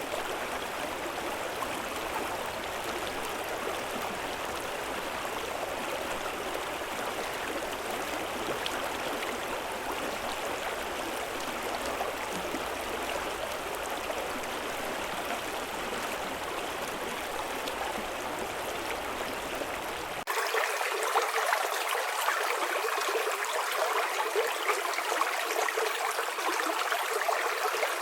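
Steady rushing of a flowing river or stream. About two-thirds of the way through it cuts suddenly to a louder, brighter rush of water with the deep rumble gone.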